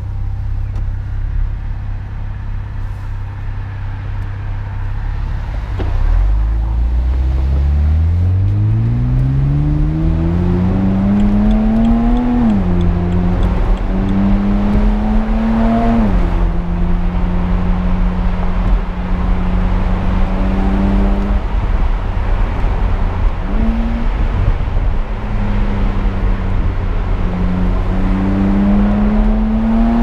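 BMW Z4 35is's twin-turbo straight-six running low and steady, then pulling away: the engine note climbs smoothly, drops twice as the dual-clutch gearbox upshifts, settles into steady cruising, and rises again near the end. Road and wind noise runs throughout.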